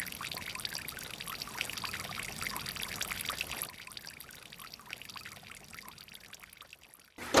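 Water trickling and pouring, a steady splashy hiss that grows fainter about halfway through and stops abruptly near the end.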